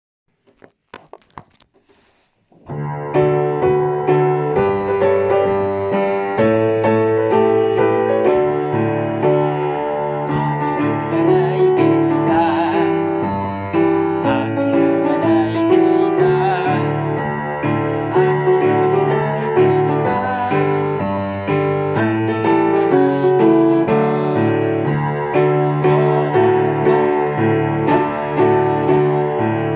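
Electric piano music, beginning after a few faint clicks about two and a half seconds in and playing on steadily.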